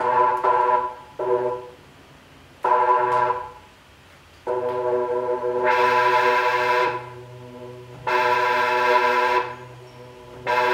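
Electronic synthesizer chords played from a MIDI pad controller: sustained, steady-pitched chords that start and stop about five times, some short and two held for a second or more, with quiet gaps between them.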